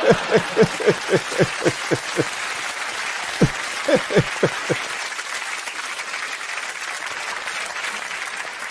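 Studio audience laughing and applauding, with one man's hearty laugh in quick 'ha-ha-ha' pulses over it for the first couple of seconds and again about three and a half seconds in.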